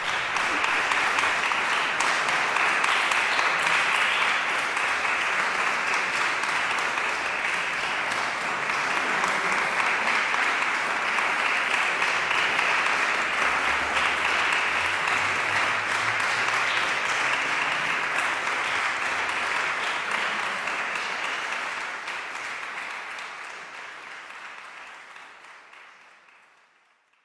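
Audience applauding steadily for a long stretch, then fading out over the last few seconds.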